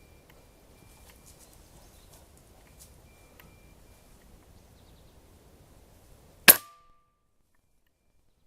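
A single air rifle shot about six and a half seconds in: one sharp, loud crack with a brief ring. Before it there are only faint outdoor ambience and small ticks, and right after it the sound cuts off to silence.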